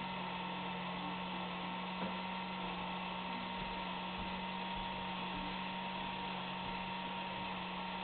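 Automatic self-cleaning litter box's motor slowly rotating its globe to sift the clumping litter: a steady hum with a thin constant whine.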